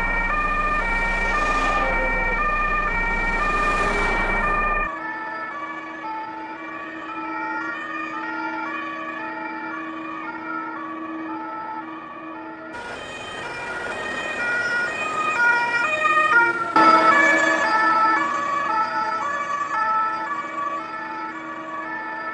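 Two-tone emergency-vehicle siren alternating steadily between a high and a low note. It drops abruptly in level about five seconds in and swells again later.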